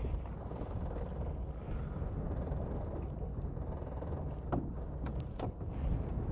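Steady low rumble aboard a small open motorboat moving on calm water, with a few light knocks about four and a half to five and a half seconds in.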